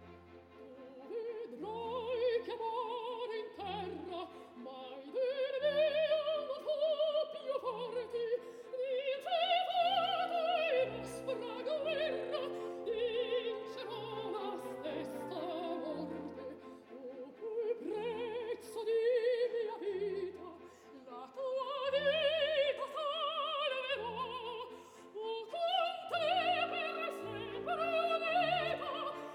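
Operatic soprano singing with strong vibrato over an orchestra, whose low strings pulse in short, evenly spaced chords beneath the voice.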